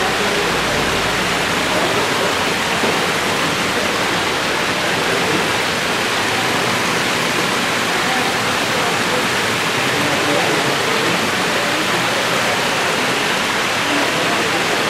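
Water falling in many thin streams from a tiered wall fountain and splashing into a pond: a steady, loud rushing splash.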